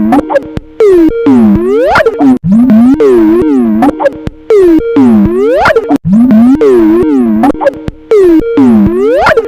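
The Skype ringtone looping loud, warped into swooping, warbling pitch glides that bend down and back up, its phrase repeating about every three and a half seconds.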